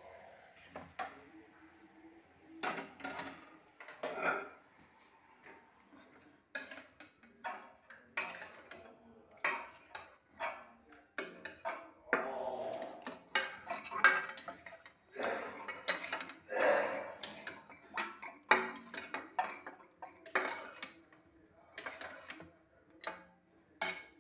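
Stainless-steel plates, bowls and utensils clinking and clattering: a string of irregular knocks, some with a short ring.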